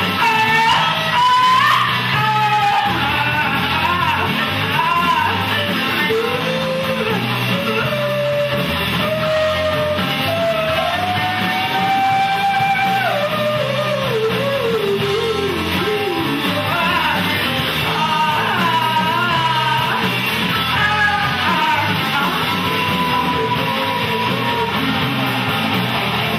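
Live blues-rock band playing, with electric guitars and a woman singing.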